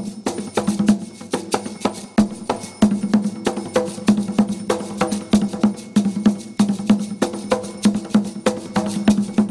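Atabaque hand drums of Umbanda ritual playing a steady, fast rhythm of ringing strokes, several strikes a second.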